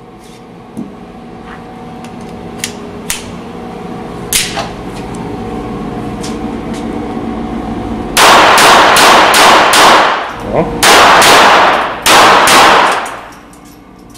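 A few light metallic clicks of the Beretta 87 Target .22 LR pistol being handled, then about eight seconds in a rapid string of shots from it, about three a second, echoing in an indoor range. Two longer stretches of continuous loud blasting follow, loud enough to overload the recording.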